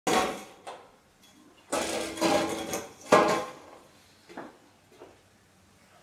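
Folding sawhorses with orange metal legs and wooden top rails being handled and set down: a series of knocks and metal clatter with brief ringing. The loudest hit comes about three seconds in, and smaller knocks follow.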